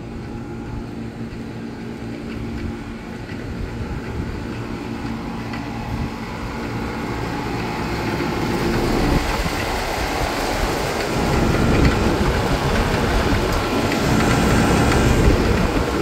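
Outdoor air conditioner condensing units running: a steady fan rush with a low compressor hum, growing louder as the Rheem Classic X unit is approached. That unit's compressor doesn't sound so good.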